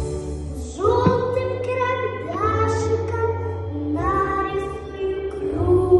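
A young girl singing a song over a musical backing track, holding several long notes of about a second each above a steady bass.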